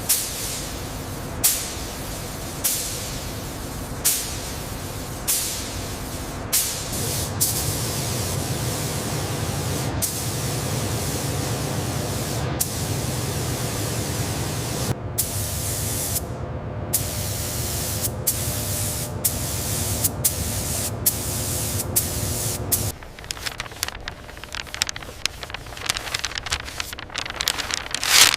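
Hissing spray: about six short bursts, roughly one every second and a half, then a steady hiss over a low rumble. Near the end it drops to a quieter crackle, with one last loud burst.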